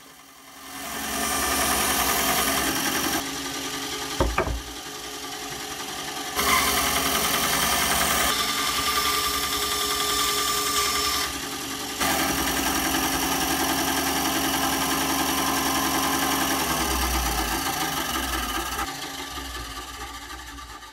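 Bandsaw with a narrow wood blade running and cutting through 21 mm birch plywood: a steady whirring hiss that jumps in level abruptly a few times, with one sharp knock about four seconds in. It fades out near the end.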